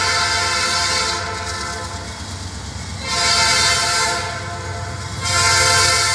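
Norfolk Southern AC44C6M diesel locomotive's air horn blowing a chord for the road crossing. It comes in loud blasts: one at the start, one about three seconds in and another from about five seconds in, softer between them. A low rumble from the approaching train runs underneath.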